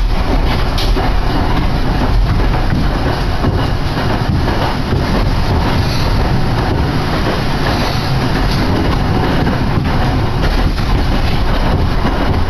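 Hakodate city tram streetcar running along its track: a steady, loud rumble of wheels and running gear with occasional faint clicks.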